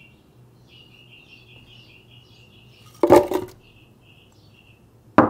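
Frozen banana chunks dropped into an empty plastic blender jar: a loud clatter of several quick hits about three seconds in, then a single sharp knock with a brief ringing tone near the end. Birds chirp faintly in the background.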